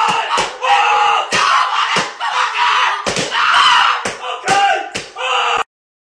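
A person screaming loudly and continuously, with repeated sharp bangs and slaps through it; it cuts off abruptly near the end.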